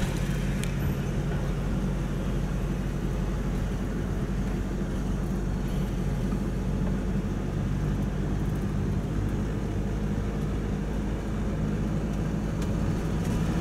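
Steady drone of engine and road noise from inside a moving vehicle's cabin, a low hum.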